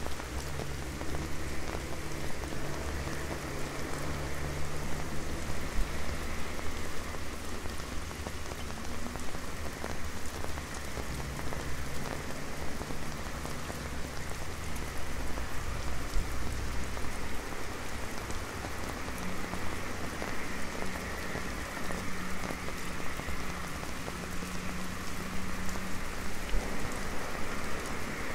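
Rain pattering on an umbrella overhead: a dense, steady patter of many drops. Underneath, a low steady hum of street traffic.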